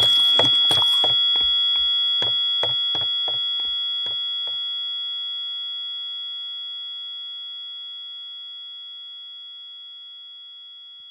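A high, steady ringing tone with several fainter tones under it, fading slowly away. Over the first four or five seconds a run of short knocks, about three a second, dies out beneath it.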